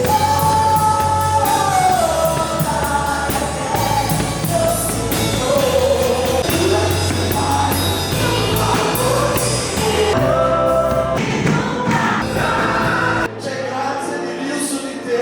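A congregation worship song: voices singing together over a band with bass and drums. The band drops back about 13 seconds in, leaving mainly the voices.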